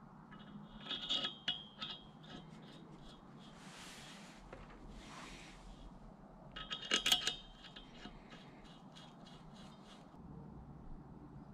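Two short runs of rapid metallic clicking, about a second in and again around seven seconds, as the rod cap bolts on a Manley forged connecting rod are run down onto the EG33 crankshaft journal, with soft rubbing of hands and parts in between.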